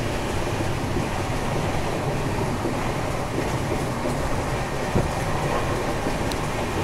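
Coromandel Express passenger coach running at about 128 km/h, a steady rumble of wheels on rails with the rush of air through the open coach door. One single knock about five seconds in.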